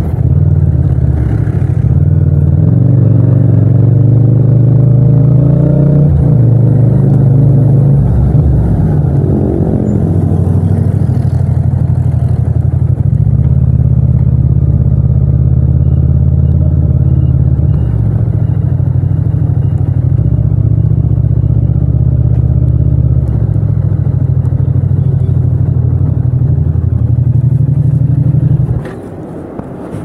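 Yamaha MT-07's 689 cc parallel-twin engine heard from the rider's seat, its revs rising and falling for the first ten seconds or so, then running steadily at low revs. The engine sound drops away sharply about a second before the end.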